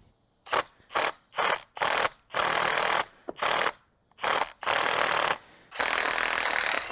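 Cordless impact gun hammering in about nine bursts, the later ones longer, as it undoes the Allen bolt in the bottom of a motorcycle front fork leg until the bolt breaks free.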